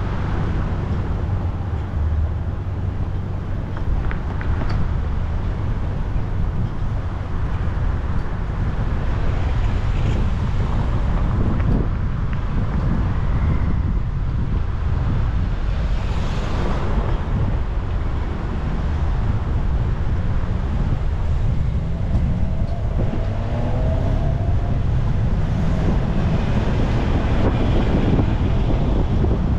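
A car driving along a road: a steady low rumble of engine, tyre and wind noise, with wind buffeting the microphone.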